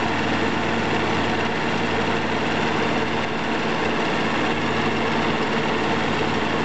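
1990 Chrysler Imperial's engine idling steadily under the hood, with the A/C compressor engaged and running while the system takes its refrigerant charge. The compressor is running smoothly, a sign that its oil is circulating.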